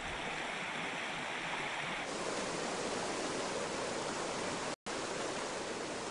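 Stream water rushing over stones and riffles, a steady noise. Its tone shifts about two seconds in, and it breaks off for an instant near the five-second mark.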